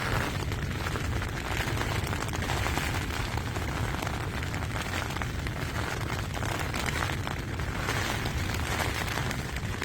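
Rain falling on a tunnel tent's fabric, with a steady low rumble of wind buffeting the tent.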